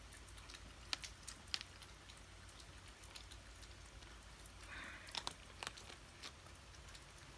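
A cat crunching dry kibble from a bowl: faint, irregular crunches.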